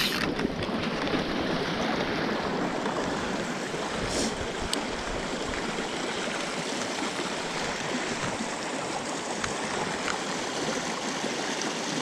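Small mountain stream running over rocks, a steady rushing of water.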